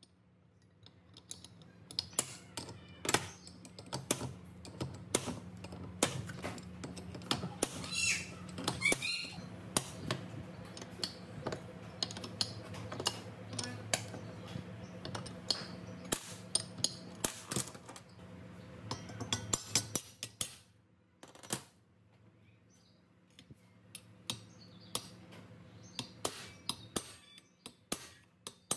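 Workshop clatter: many small clicks and knocks of tools and metal parts being handled, over a steady low hum that stops near the end, with a brief squeak about eight seconds in.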